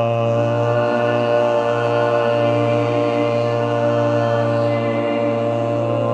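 Group chanting: a man's voice holds one long note at a steady low pitch without a break, with other voices blending in beneath it.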